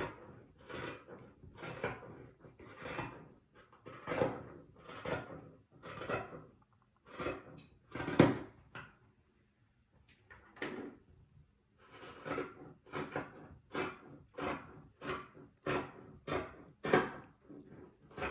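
Scissors cutting through several layers of folded fabric: a steady run of short snips, about one to two a second, with a short pause about nine seconds in before the snipping starts again.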